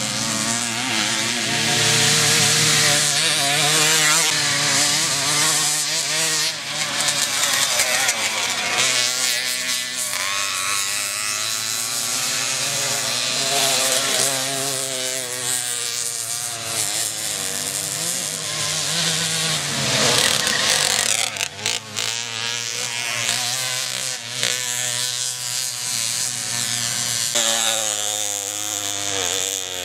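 Small two-stroke moped engines revving hard, their pitch rising and falling again and again as the riders accelerate and back off, with more than one engine heard at once.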